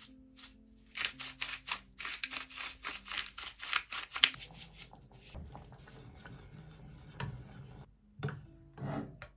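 A hand-turned pepper grinder cranking in a quick run of gritty clicks over about three seconds, over soft background music.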